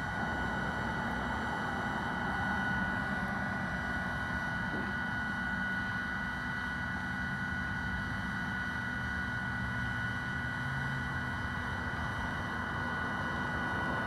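Bee vacuum running steadily, sucking bees up through its hose: a constant high motor whine over a low hum.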